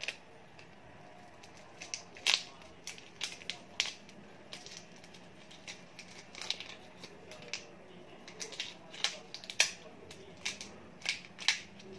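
Shells of large shrimp crackling and snapping as they are peeled off by hand, in irregular sharp clicks.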